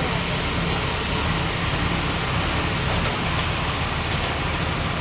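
Generator engine running steadily, a constant low rumble under an even hiss.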